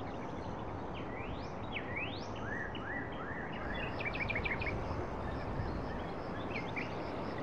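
Birds calling in woodland over a steady outdoor background hiss: several rising whistled notes in the first few seconds, a quick run of short notes about four seconds in, and a few more chirps near the end.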